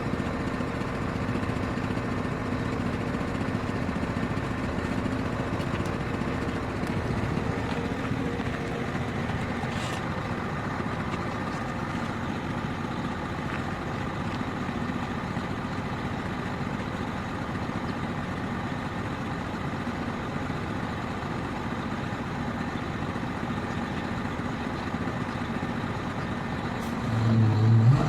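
Heavy diesel engine of earth-moving equipment running steadily, with a louder low-pitched sound near the end.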